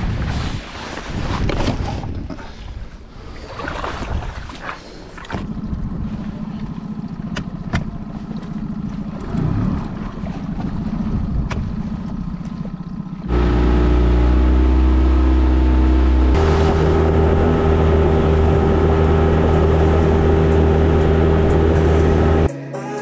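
Wind and water noise on a small inflatable boat with its 20 hp outboard motor running as a steady low hum. About thirteen seconds in, music starts suddenly and loudly with sustained chords and light regular ticks, covering the boat sounds.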